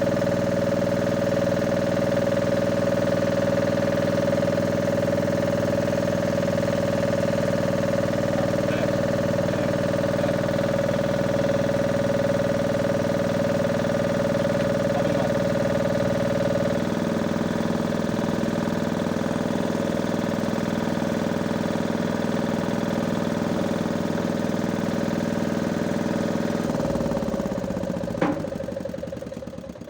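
A machine's motor running with a steady hum. Its note changes about halfway through, then it winds down and stops near the end, with a sharp click just as it dies away.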